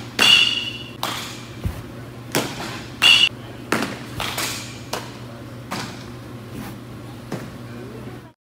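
Two ringing pings of a metal baseball bat hitting a ball, one near the start and one about three seconds later, among a string of duller thuds and smacks of baseballs into gloves and netting. Some voices can be heard faintly.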